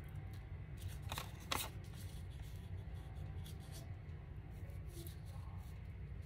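Paper rustling and crinkling as thin collage paper pieces are handled and smoothed down onto a paper envelope, with two short sharper crackles between one and two seconds in. A steady low hum runs underneath.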